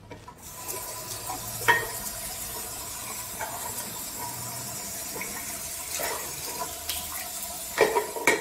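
Thin stream of water running from an old metal cross-handle tap into a ceramic washbasin. A few sharp clicks and knocks come from the tap as it is handled, one about two seconds in and several near the end.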